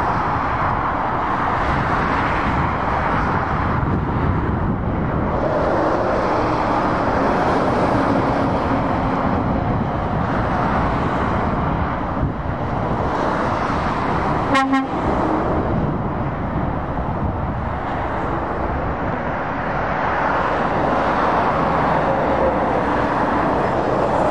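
Steady road noise of lorries and cars passing at speed on a dual carriageway, tyres and engines swelling and fading as each vehicle goes by. About halfway through, a vehicle horn gives a brief toot.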